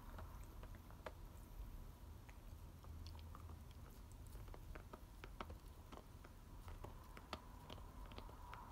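American Cocker Spaniel gnawing a toy bone: faint, irregular clicks and crunches of teeth working on the bone.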